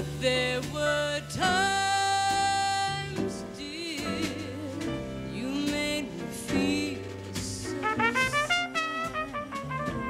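Small jazz band playing, led by a trumpet: a long held note early on, wavering notes in the middle, and a quick run of short notes climbing in pitch near the end, over an upright bass.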